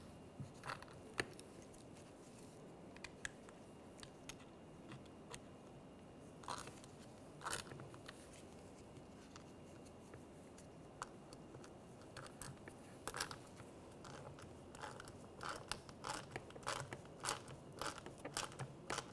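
Faint, scattered clicks and taps of hard plastic parts as a new leak detection pump is fitted to its plastic housing and the screws are started by hand. The clicks come more often in the last several seconds.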